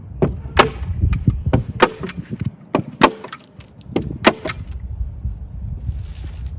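A hand staple gun firing staples into bird netting: four loud sharp snaps about a second and a quarter apart, with smaller clicks between them, over a low rumble.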